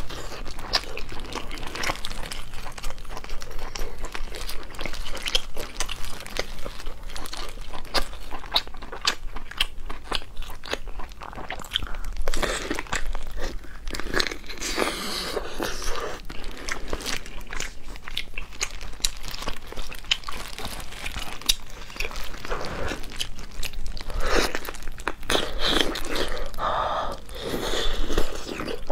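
Close-miked eating of stewed pork: biting into and chewing the meat and skin, with many short, sharp mouth clicks and smacks.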